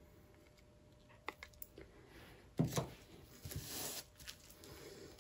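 Handling noises at a work table: a few light clicks, one solid knock about two and a half seconds in, then a stretch of rustling.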